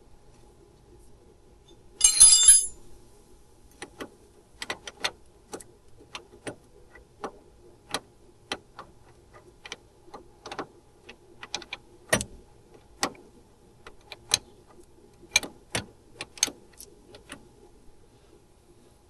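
Metal hand tools working on a steering line fitting: a short loud rattle about two seconds in, then sharp irregular metallic clicks, one to three a second, with a faint steady hum underneath.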